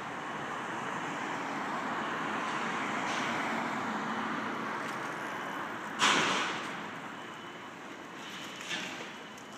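Street traffic: a car passes close by, its tyre and engine noise swelling and then easing over the first several seconds. About six seconds in, a sudden loud noise cuts in and fades over about a second, followed by a smaller one near the end.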